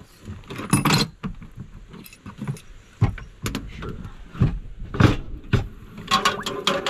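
Mussel shells clinking and clattering as they are handled and dropped into a cooking pot: a string of irregular sharp knocks.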